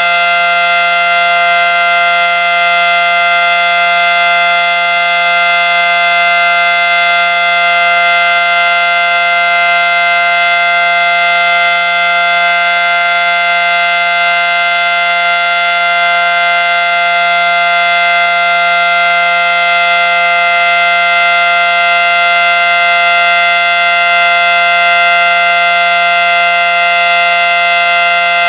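Federal Signal Model 5T outdoor warning siren sounding its full alert signal, a loud, steady tone held at full pitch without rising or falling.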